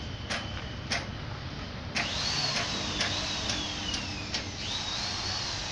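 Coach-building workshop noise: scattered sharp knocks, and from about two seconds in a power tool's high whine over a hiss. The whine sinks slowly in pitch, then rises again near the end.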